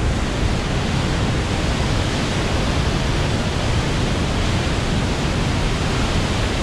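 Augrabies Falls on the Orange River in flood: a loud, steady rush of water pouring over the falls, heaviest in the low range and unbroken throughout.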